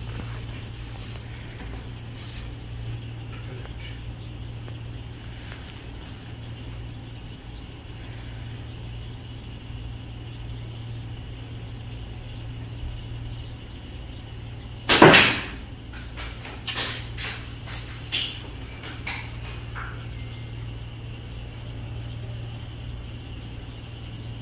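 Slingshot shooting 7 mm steel balls: one loud, sharp smack about 15 seconds in, followed by a few lighter clicks and knocks over the next five seconds, over a steady low hum.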